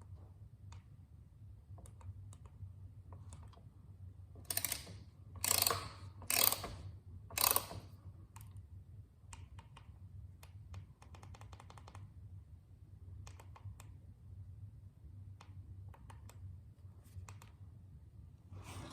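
Scattered light clicks and ticks of hand tools working on a motorcycle rear wheel assembly over a steady low hum. Four short, loud, rasping bursts come about five to eight seconds in.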